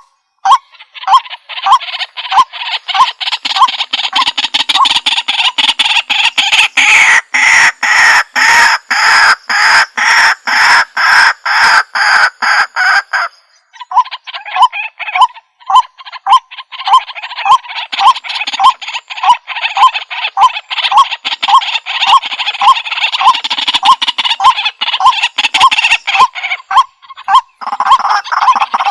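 White-breasted waterhen calling: a long, loud run of repeated harsh 'kwak' notes, about two or three a second, over a rough croaking chatter. The run breaks off briefly about halfway through, then starts again.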